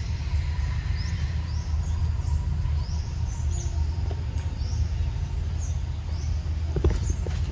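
Small birds chirping, short rising notes repeated every second or so, over a steady low rumble. Near the end there are a few sharp rustles and clicks.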